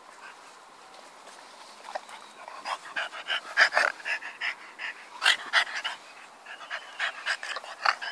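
French bulldog panting in quick, loud breaths close to the microphone, starting about two seconds in.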